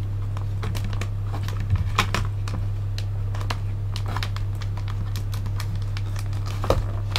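Irregular clicks and crackles of plastic action-figure packaging being handled as its plastic twist ties are untwisted, with a few sharper clicks, over a steady low hum.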